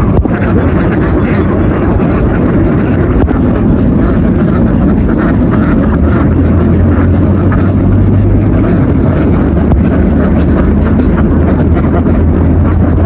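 An engine running steadily, its low hum growing stronger about six seconds in.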